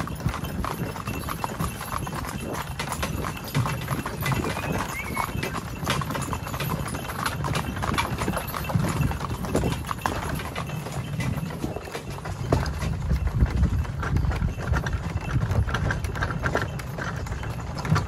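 Hooves of a two-horse team clip-clopping on a dirt track as they pull a cart, over a steady low rumble.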